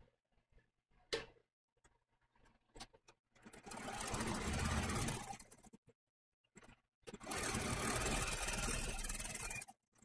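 Electric sewing machine running a small zigzag stitch through layers of quilted fabric and batting, in two runs of about two and a half seconds each with a short stop between. A sharp click about a second in, and light clicks of handling before each run.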